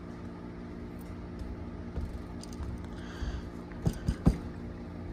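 Plastic Apple II Plus double-shot keycaps being handled, with three quick light clicks about four seconds in as caps tap together. A steady low hum runs underneath.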